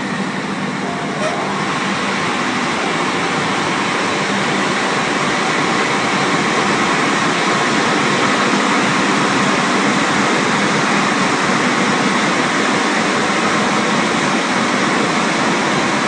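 Rollover automatic car wash machine running, a steady, loud rushing noise that holds at an even level throughout.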